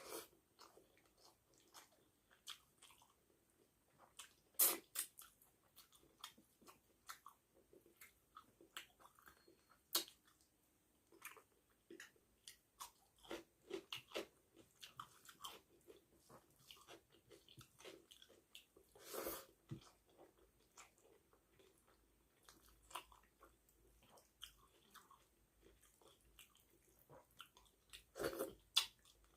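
A person chewing and eating rice and fish curry: faint, irregular wet mouth smacks and crunches, with a few louder smacks now and then.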